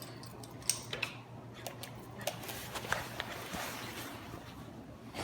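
Scattered light clicks, taps and rustles of small things being handled or knocked about, over a low steady hum.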